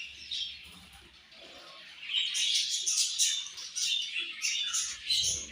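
A flock of budgerigars chirping and chattering, thin for the first couple of seconds and then dense and continuous.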